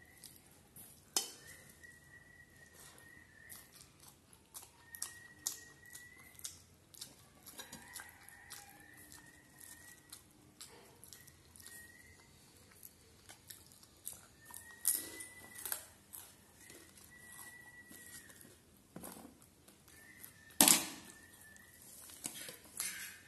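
Eating by hand from stainless steel plates: scattered light clinks and taps of fingers, bangles and food against the steel, with a louder clank of a steel bowl against the plate near the end. A faint high whistling tone comes and goes in the background.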